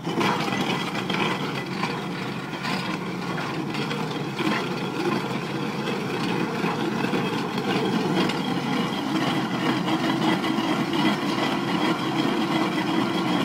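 Machine-driven earth auger boring a stump hole through rock, with the carrier machine's engine running steadily under load. A few short knocks come from the rock and soil as the auger grinds in.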